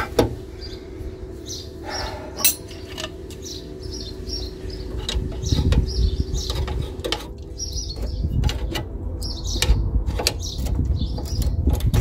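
Irregular clicks and knocks of metal hand tools, a socket and long bar on the front suspension's upper control arm bolt, with a low rumble at times. Birds chirp in the background.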